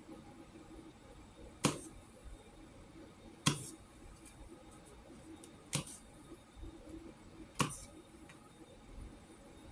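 Kitchen knife slicing button mushrooms on a plate, the blade clicking sharply against the plate four times, about two seconds apart.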